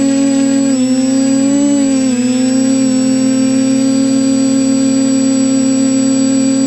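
Quadcopter's electric motors and propellers whining steadily, heard from a camera mounted on the craft. The pitch wavers down and up twice within the first few seconds, then holds level. A thin, steady high whine sits above it.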